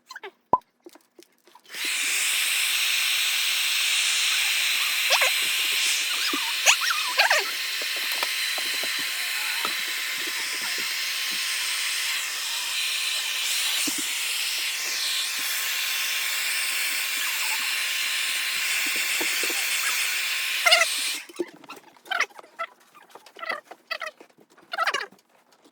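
A steady spraying hiss of gas or air, such as an aerosol can or air nozzle, starts about two seconds in, runs for about nineteen seconds and stops abruptly, with a few small clicks over it; light clicking and handling noises come before and after.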